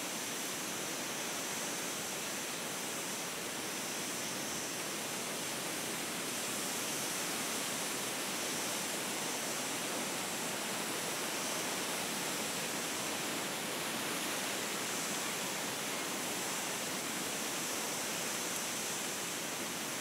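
Steady wind ambience: an even rushing hiss with no gusts or breaks.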